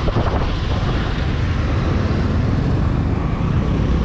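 Wind buffeting the microphone over the steady running of a motor scooter's engine while riding, with the rumble of traffic around it.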